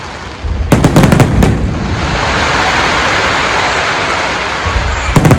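Fireworks display going off: a quick cluster of sharp bangs about a second in, then a dense continuous crackle of bursts, and another cluster of bangs near the end.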